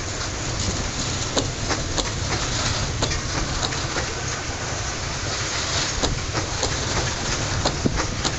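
Open freight wagons of a long train rolling past: a steady rumble of wheels on rail with irregular sharp clicks as the wheels run over the rail joints.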